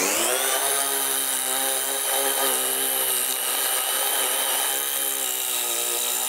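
Small cordless impact driver spinning a 6 mm hex-shank multi-material masonry bit into a concrete paving slab. The motor's whine rises in pitch at first as it spins up, then holds steady while the bit grinds into the concrete.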